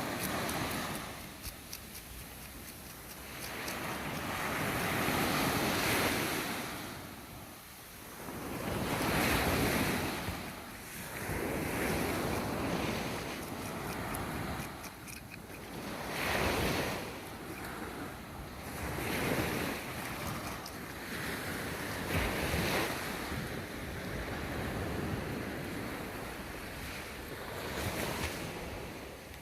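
Sea waves breaking on a beach, swelling and washing back every few seconds, with wind buffeting the microphone.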